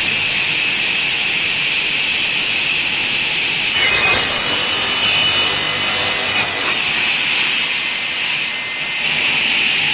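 Double-head aluminium cutting saw with 450 mm blades fed up from below, its motors running with a steady whine. From about four seconds in until near the end, the blades cut through a Xingfa aluminium profile with a high-pitched ringing screech.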